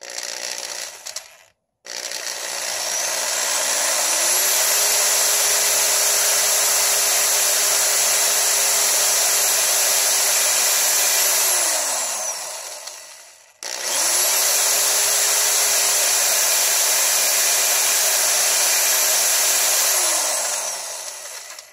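Corded electric drill with a 21/64 bit drilling out a stripped bolt hole in an aluminum intake manifold. It runs twice: each time it spins up to a steady high whine, holds for several seconds, then winds down.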